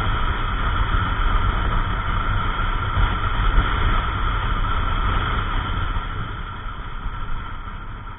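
Yamaha NMAX 155 scooter's single-cylinder engine and CVT under way at road speed, with wind rushing over the camera microphone. The noise eases off near the end as the scooter slows.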